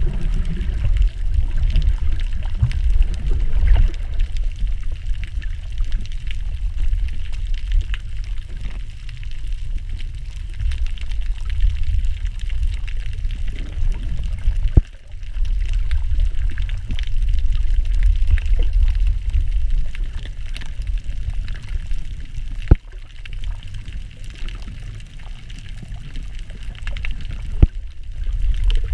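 Underwater sound through a submerged camera: a low, muffled rush of moving water with a fainter hiss above it. Three sharp clicks break in, a little before halfway, about three quarters through (the loudest) and near the end.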